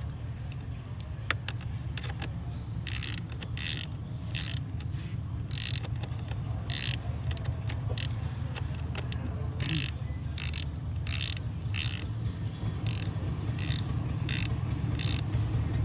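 Ratchet wrench tightening a 10 mm nut on a car battery terminal clamp: a run of short raspy ratchet clicks, one stroke every half second to a second, starting about three seconds in, over a steady low hum.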